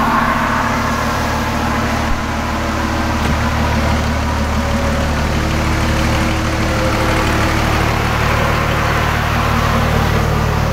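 The 2005 Dodge Ram's 5.9L Cummins common-rail inline-six diesel idles after a full-throttle dyno pull, a steady low engine drone, while the wheels and dyno rollers coast down and add a steady rushing noise.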